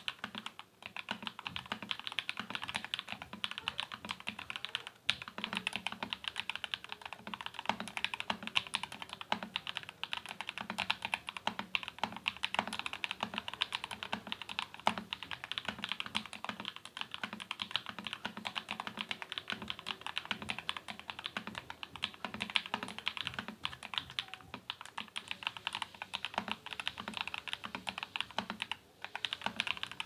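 Steady, fast typing on a Royal Kludge RK68 mechanical keyboard fitted with KTT Red Wine linear switches lubed with Krytox 205g0, a dense run of keystrokes.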